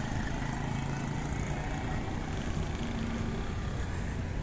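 Street traffic: motor vehicle engines running steadily as a continuous low rumble.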